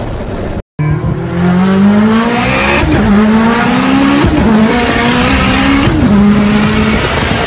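Car engine accelerating hard through the gears, heard from inside the cabin. The revs climb and fall back at three upshifts, about three, four and six seconds in, then hold steady. The sound cuts out briefly under a second in.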